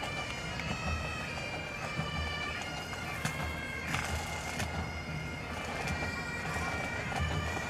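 Highland pipe band on the march: bagpipes playing a tune over a regular beat of drums.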